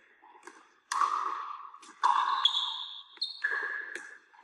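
Pickleball paddles striking the plastic ball during a rally: three sharp pops about a second apart, each with a short ring that echoes in a gym, with fainter ticks between them.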